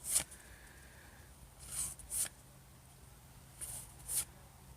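Baseball trading cards sliding against one another as they are flipped through a hand-held stack one at a time: short papery swishes, mostly in pairs, about every two seconds.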